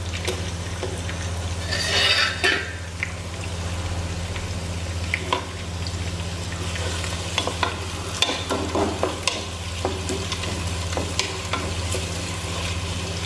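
Sliced shallots and whole spices sizzling in hot oil in a steel pot, stirred with a wooden spatula that scrapes and knocks against the pot. The sizzle surges about two seconds in, and a steady low hum runs underneath.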